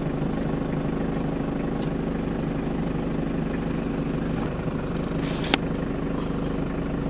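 An engine idling steadily, with a brief hiss and a sharp click about five and a half seconds in.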